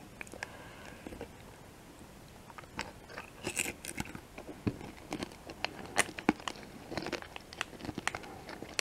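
Close-miked chewing of M&M's candy: a few faint clicks at first, then frequent crisp crunches of the candy shell from about three seconds in.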